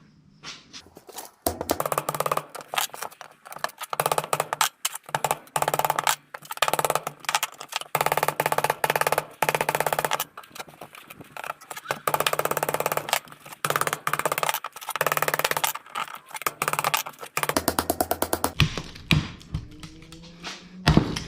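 Hammer knocking the copper windings out of an electric water pump motor, sped up to eight times speed so the taps run together into a rapid drumming beat. It comes in bursts with short pauses between them.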